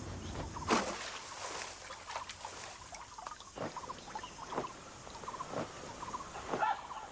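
Wild swamp ambience: short trilled animal chirps repeating at one pitch, with scattered brief noisy scuffs, the loudest about a second in.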